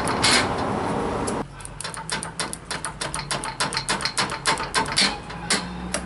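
Fast run of sharp clicks, about five a second, starting about a second and a half in, with a few more spaced out near the end, as the excess bottom weatherstrip is cut off at the end of a garage door.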